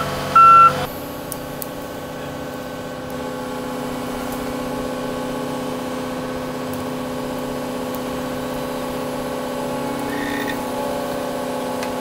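Volvo EC300E excavator: its travel alarm gives a last beep in the first second, then the diesel engine and hydraulics run with a steady drone while the bucket works a round hay bale.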